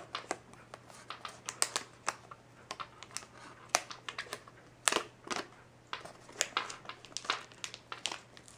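Clear plastic protective film being peeled off an Apple USB SuperDrive, crinkling and crackling in irregular snaps.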